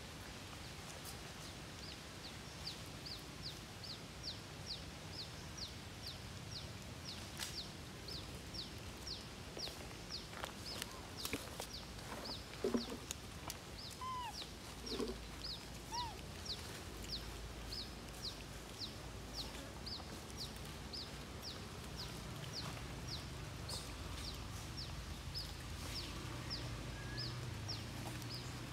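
A bird chirping over and over, a short high falling note about twice a second. Around the middle there are a few sharp knocks and brief lower calls.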